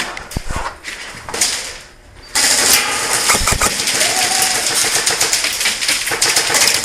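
Airsoft guns firing full auto, a dense rattle of rapid shots that starts suddenly about two seconds in.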